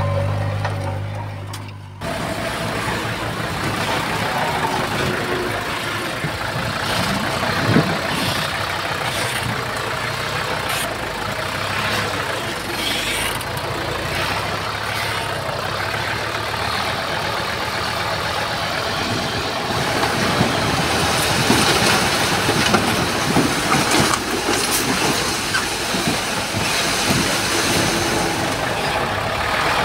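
Heavy diesel earthmoving machinery running under load, with scattered clanks and knocks. A different steady hum fades out in the first two seconds before the machine noise cuts in.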